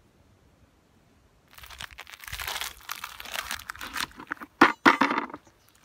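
Rustling and crinkling handling noise during olive picking, starting about a second and a half in, broken by a few sharp clicks near the end.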